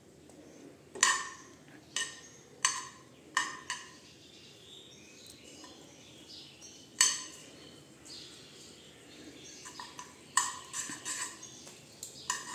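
Steel spoon clinking against a frying pan while stirring melting butter: a few sharp ringing clinks about a second apart early, one more near the middle, then a quicker run of lighter clinks and scrapes near the end.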